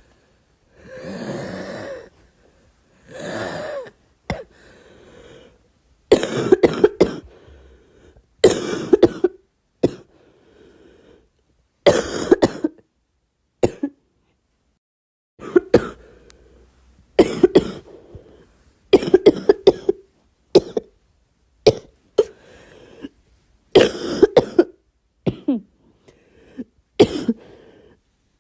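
A girl coughing in repeated fits, each of several sharp coughs in quick succession, a fit every second or two. The first few seconds hold two longer, drawn-out throat sounds before the fits start.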